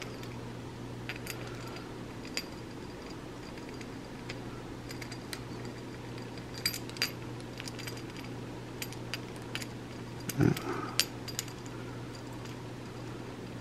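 Light clicks and taps of hands fitting a rubber intake boot and plastic intake parts on a chainsaw, over a steady low hum. A brief low voice-like sound comes about ten and a half seconds in, the loudest moment.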